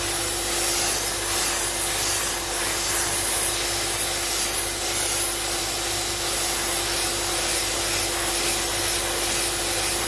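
SB28 suction sandblasting pot running: a steady hiss of compressed air driving aluminium silicate grit onto a metal part, over a steady hum from its built-in hoover.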